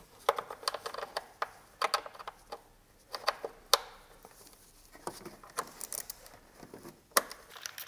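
Ratchet wrench on a small universal-joint extension loosening a screw in a tight spot: scattered metallic clicks and clinks of the ratchet and socket, with one sharper click near the end.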